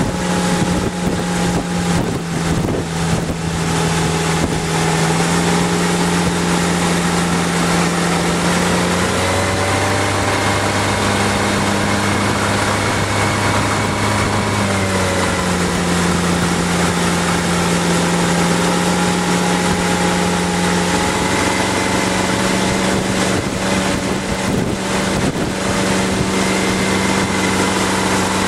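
Motorboat engine running steadily under load while towing a wakeboarder; its note shifts lower for several seconds in the middle, then returns. Wind buffets the microphone in gusts near the start and again near the end.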